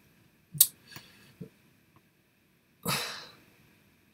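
A man's small mouth and breathing sounds close to the microphone: a sharp click about half a second in, two faint ones after it, then a half-second breath near the end.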